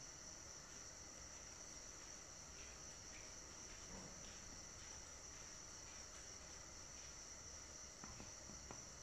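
Near silence: faint room tone with a steady high-pitched whine, and a few faint ticks about four seconds in and again near the end.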